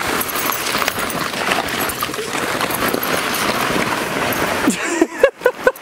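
Fabric ball pit dragged over grass, with the plastic balls inside rustling and clattering against one another. A few short rising-and-falling vocal sounds come near the end.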